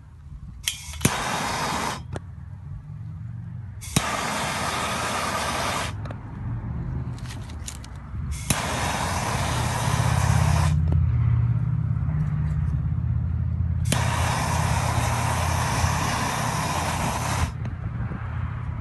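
Handheld gas torch hissing in four separate bursts of a few seconds each as it is fired at filter papers in a steel pot, with a sharp click near the start of the first two. A steady low rumble sets in about halfway through.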